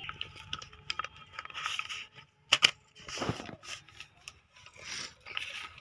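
A sheet of paper being handled and folded by hand: short bursts of rustling and crinkling as it is creased, with a couple of sharp snaps about two and a half seconds in.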